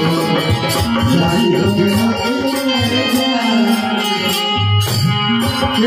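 Live Bhojpuri folk stage music: tabla drumming keeps a steady rhythm under a melody line.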